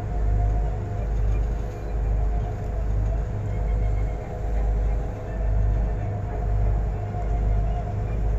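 Cruise boat's engine droning steadily, with a deep throb swelling about once a second over a steady machinery hum.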